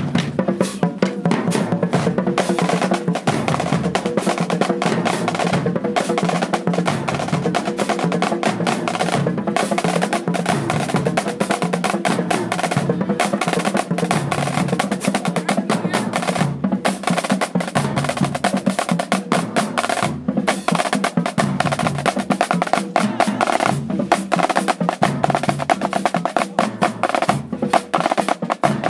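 Marching band drumline playing a fast, continuous cadence: snare drums, bass drums and rim or wood-block clicks keeping a steady beat.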